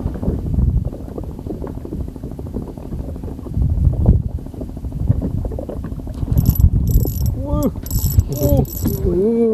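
Small spinning reel being cranked, its gears and mechanism running as the line is wound in, over a steady low rumble.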